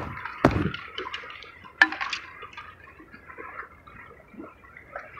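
A fishing landing net and a hanging scale's clip being handled: three sharp clicks and knocks in the first two seconds, the second with a dull thump, then faint rustling and small handling noises.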